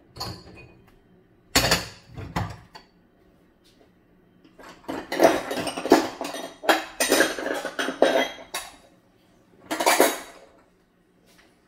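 Dishes and cutlery clattering as they are handled in a kitchen: a couple of knocks about two seconds in, then a busy run of clinks and clatter in the middle, and one more clatter near the end.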